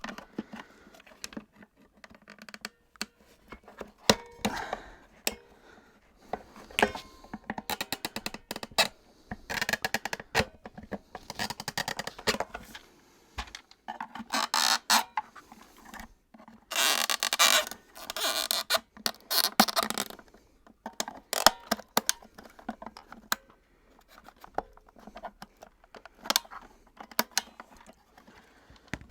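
Plastic parts of a Miele S234i vacuum cleaner being handled and worked at their clips during disassembly: irregular clicks, taps and knocks, with a few seconds of scraping and rubbing about halfway through.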